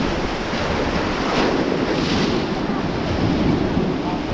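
River rapids rushing and splashing around an inflatable raft, a steady churning hiss of white water, with wind buffeting the microphone.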